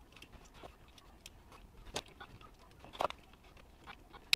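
Faint, sharp clicks and taps of small plastic steering-wheel shift-button parts being worked apart by hand with a small tool, a few times about a second apart.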